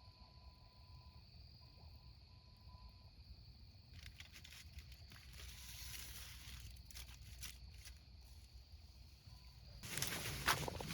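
Faint night ambience with a steady high trill, then from about four seconds in a rustling, crackling noise with scattered clicks. The rustling swells to its loudest, with sharp clicks, near the end.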